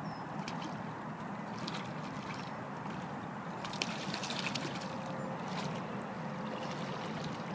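Boots in chest waders splashing and sloshing through shallow river water, a string of irregular wading steps, the busiest about four seconds in.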